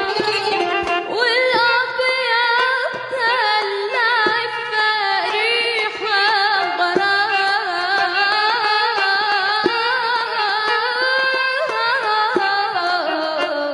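A woman sings a classical Arabic melody with ornate, wavering runs over an instrumental ensemble, while a hand drum punctuates it with strokes.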